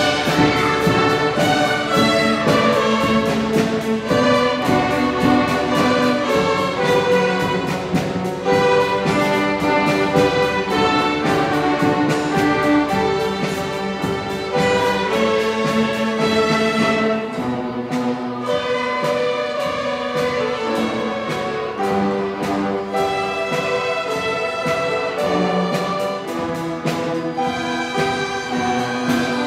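A fifth-grade school string orchestra playing a piece together, with violins, violas and cellos bowing held notes. It gets a little softer from about halfway.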